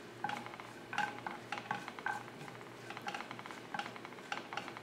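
Wooden spatula stirring coconut pieces and sesame seeds frying in ghee in a nonstick pan: irregular light scrapes and taps against the pan over a faint sizzle.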